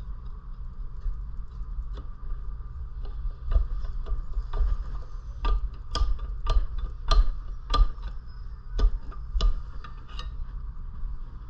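Repeated sharp metal-on-metal strikes at the seized flywheel of a Predator 212cc engine. They pick up about three seconds in, run at roughly two a second and thin out near the end.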